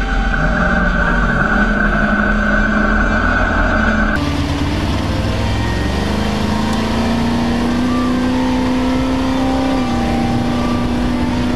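Off-road race truck engine running hard at speed, heard from on board the truck. The sound changes abruptly about four seconds in, and after that the engine note climbs slowly as the truck accelerates.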